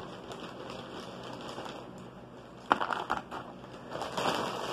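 Crinkling and crunching of food packaging handled close to the microphone. There is a sharp crackle a little under three seconds in and a louder stretch of crinkling near the end.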